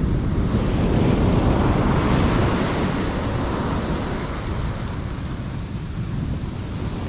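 Ocean surf: a wave rushes up the sand and washes back, swelling over the first couple of seconds and easing off, with wind buffeting the microphone.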